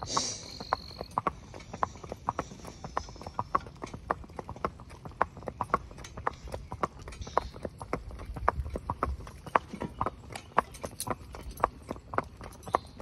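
Horse hooves clip-clopping on a wet asphalt road in a steady, even rhythm, about three hoofbeats a second.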